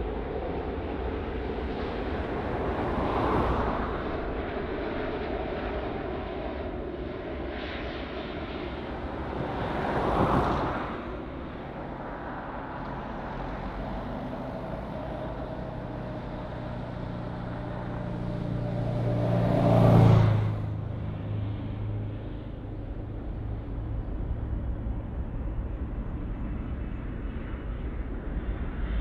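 Jet airliner on its landing approach, engines droning as it nears and passes, loudest about twenty seconds in. Two shorter swells of passing noise come earlier.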